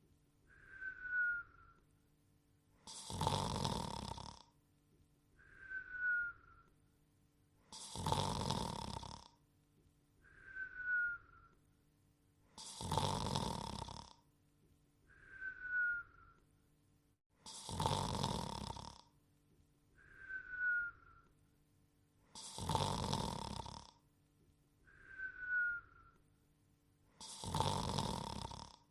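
Cartoon dog's snoring: a long snore on each breath in, then a short falling whistle on the breath out, the pair repeating evenly about every five seconds, six times over.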